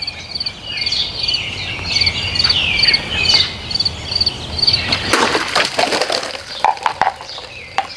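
A sharp chef's knife slashes through a row of five plastic water bottles about five seconds in, in one sudden burst of cutting, followed by a few sharp knocks as the cut tops land. Before the cut there is steady high chirping of insects in the background.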